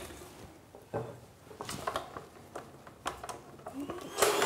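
Rubber spatula scraping and tapping against a stainless steel stand-mixer bowl, a few light knocks and clicks, as creamed margarine is scraped down from the sides. Near the end the stand mixer's motor switches on with a rising whine.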